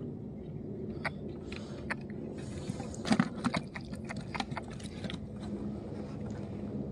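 Scattered sharp clicks and knocks, thickening into a quick run in the middle, over a steady low hum.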